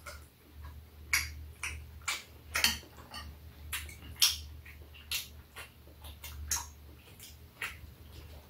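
Metal chopsticks and a spoon clicking and scraping against bowls and a metal tray while eating, in irregular sharp ticks, over a steady low hum.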